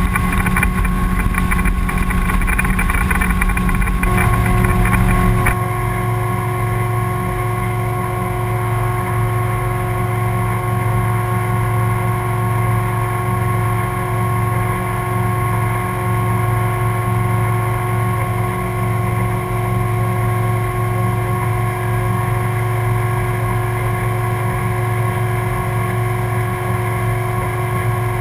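Outboard motor running steadily at speed with the boat under way, heard from on board. For the first five seconds or so a camera clamp's pivot hardware rattles over it. After that the camera is clamped to the welded windshield frame and the motor runs as a steady hum with a few held tones, with no rattle.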